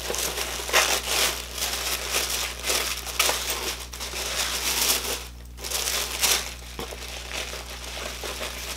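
Crinkling and rustling of bubble wrap and box packaging being handled and pulled open, in irregular crinkles with a brief pause about five and a half seconds in.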